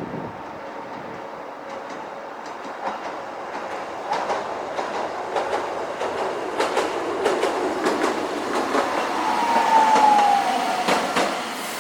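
Toden Arakawa Line tram passing, its wheels clicking irregularly over the rails and getting louder until about ten seconds in. Near its loudest, a short wheel squeal slides down in pitch.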